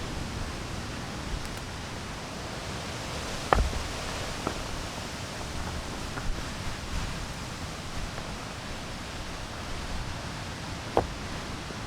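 Steady wind noise on the microphone with some rustling, broken by two sharp knocks, one about three and a half seconds in and one near the end.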